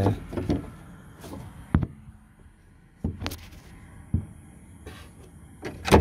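A few sharp clicks and knocks from hands and tools working at a BMW E36 door lock mechanism inside the door shell, spread out over a few seconds.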